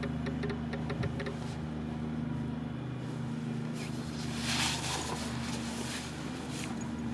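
Construction machinery engine running steadily with a low hum. A short hiss comes about four and a half seconds in.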